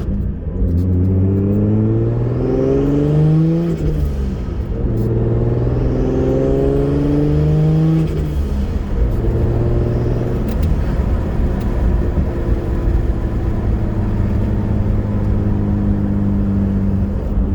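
Turbocharged 2JZ-GE inline-six of a Lexus IS300 accelerating hard, the engine note climbing and then dropping at an upshift about four seconds in and again about eight seconds in, with a faint rising turbo whistle under boost. From about ten seconds in it settles into a steady cruise.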